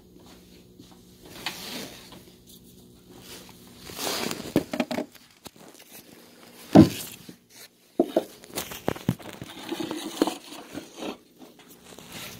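Handling noise: irregular rubbing and scraping with a few knocks, the loudest a sharp thump about seven seconds in, over a faint steady low hum.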